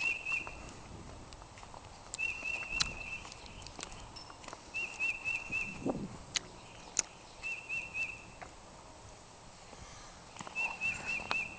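A songbird singing a short phrase of four or five quick, high chirping notes, repeated five times about every two and a half seconds. Scattered sharp clicks and a crunch or two sound in between.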